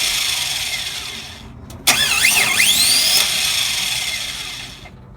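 2003 Chevy Express 1500's starter motor whirring when the key is turned, without the engine catching: a first attempt fading away, then a second that starts suddenly about two seconds in, wavers and rises in pitch, then dies away. The van will not start, which the owner puts down to a failed starter.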